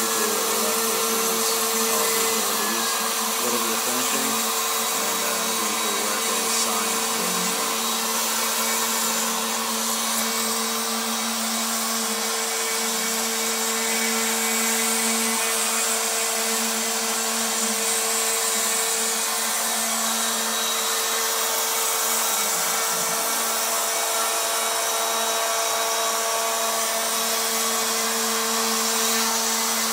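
Router spindle on a homemade CNC router running steadily at constant speed: a steady motor hum with a high-pitched whine, unchanging throughout.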